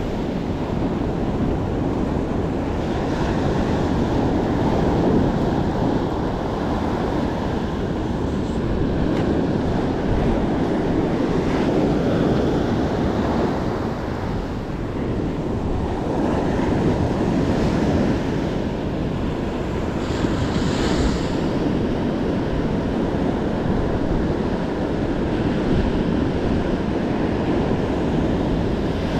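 Ocean surf washing and breaking on the beach, swelling and easing every several seconds, with wind rumbling on the microphone.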